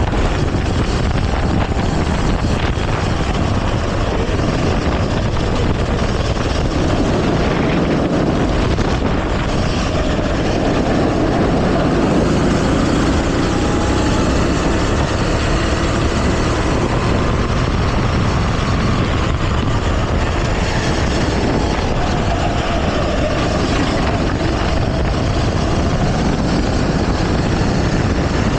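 Go-kart engine running at racing speed, heard from the onboard camera under a dense, steady rush of noise. Its pitch rises and falls gently as the kart goes round the track.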